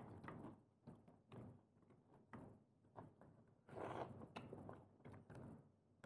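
Faint eating sounds from someone eating prawns and clams: soft chewing and small clicks and smacks every half second or so, with a longer, noisier sound about four seconds in.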